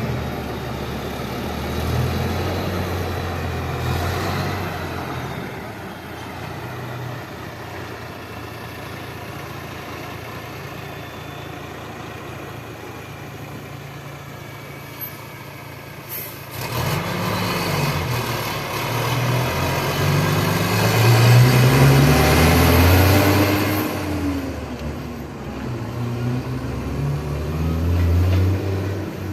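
Logging truck's diesel engine running steadily at low revs, then, after a brief click about sixteen seconds in, revving up louder with its pitch rising and falling and a high whine climbing as it works.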